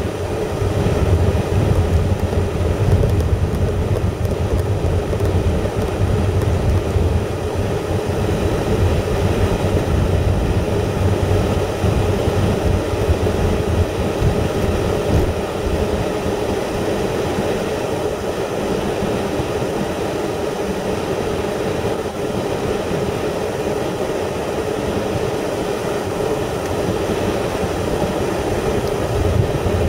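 Steady engine and road noise of a car being driven, a low continuous rumble with no change in pace.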